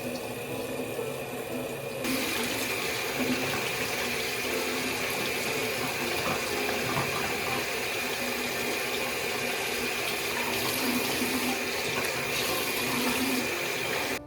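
Water running steadily from a tap into a sink, the flow growing stronger about two seconds in and stopping abruptly near the end.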